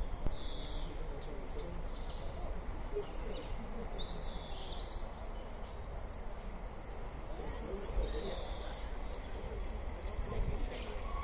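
Small birds chirping in short calls scattered every second or so over a steady low background rumble. Right at the end a steady whistle tone starts: the steam locomotive's whistle as it approaches.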